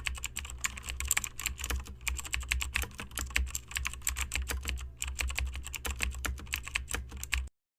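Rapid, irregular clicking, many clicks a second, over a steady low hum; it stops abruptly near the end.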